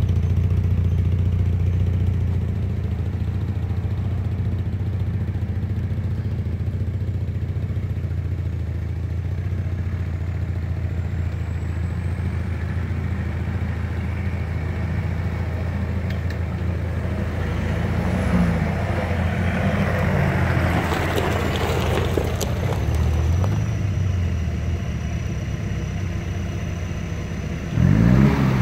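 Off-road SUV engine idling steadily, then revving hard as the vehicle climbs over a gravel heap, with gravel crunching and clattering under the tyres. Near the end a second engine revs suddenly and loudly close by.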